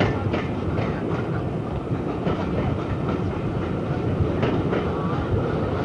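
Passenger train running through a station, heard from an open carriage window: a steady rumble with sharp clicks as the wheels cross rail joints and points, several in quick succession in the first second and more around two and four and a half seconds in.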